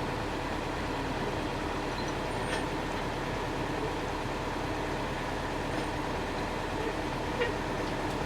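Steady running of the low-bed lorry's engine and hydraulic system while its hydraulic loading ramp is being extended, an even hum with a faint steady whine.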